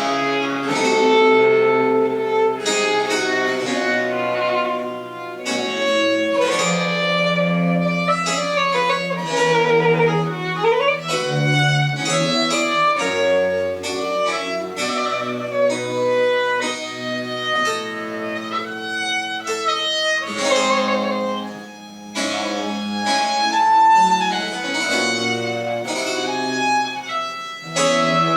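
Baroque chamber ensemble playing, with bowed string instruments carrying the lines. The music starts suddenly at the opening and runs on steadily with many quick notes.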